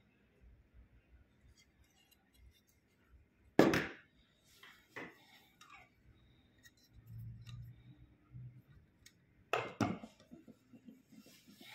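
Metal-cased dial thermometers and gauges being handled and set on a wooden table: two loud knocks about six seconds apart, each with a brief ring, and smaller clinks between them.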